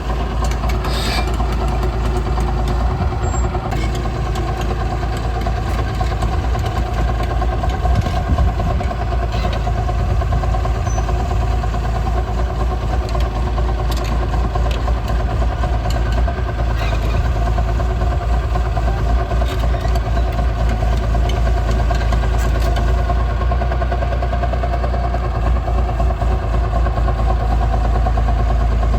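Liebherr 932 excavator's diesel engine running steadily.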